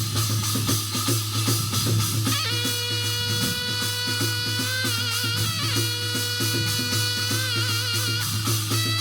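Korean shamanic ritual music (gut) for a dragon-god rite: fast, dense drumming and percussion. About two and a half seconds in, a long held melodic line joins, wavering in pitch a couple of times.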